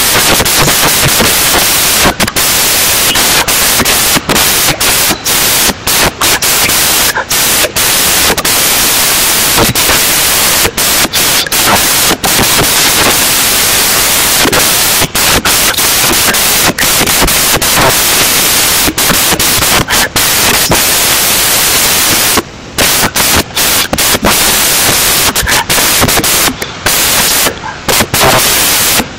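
Loud hissing static over the whole recording, cut by many short dropouts and a longer one about two-thirds of the way through. It is an audio fault in the screen recording whose cause the uploader does not know.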